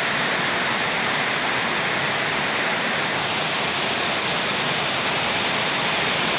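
Heavy rain pouring down steadily in a storm, a constant even rush.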